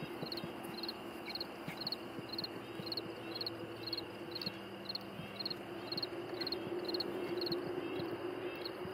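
An insect, likely a cricket, chirping steadily at about two to three chirps a second. Under it, goats tear and crop grass in irregular low snaps and clicks, over a low steady hum.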